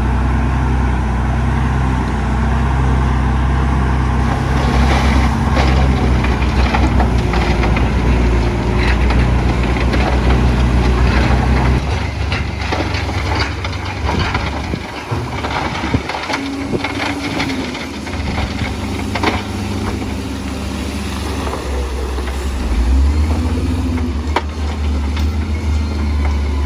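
Heavy diesel earthmoving machinery (dump truck and bulldozer) running under load, with a deep engine drone that changes pitch and level about twelve seconds in. Scattered knocks and clatter of rock come through during the first half.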